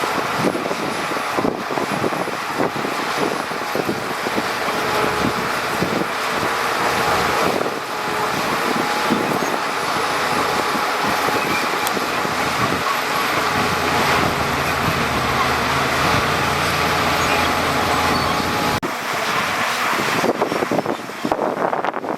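Heavy earthmoving machinery running steadily, a diesel engine drone with a noisy rumble. The sound changes abruptly about nineteen seconds in.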